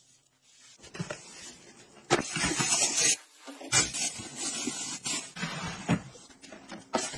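Thin plastic bin liner rustling and crinkling as it is opened out and fitted into a plastic wastebasket, with a few light knocks.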